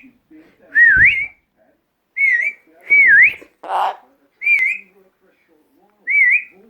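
Pet parrot whistling: five short whistled notes, each dipping then rising in pitch, spaced a second or so apart, with one short harsh call about four seconds in.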